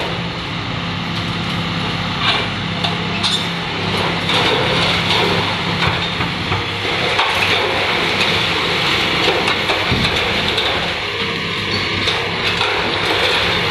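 Caterpillar 320B hydraulic excavator's diesel engine running steadily under load while its bucket tears at a building's roof. Scattered cracks, knocks and crashes of breaking concrete and twisted steel framing run throughout.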